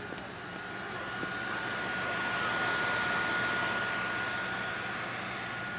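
Averatec laptop's cooling fan blowing: a steady airy hiss that swells to a peak about halfway through and then fades, with a thin steady high whine throughout.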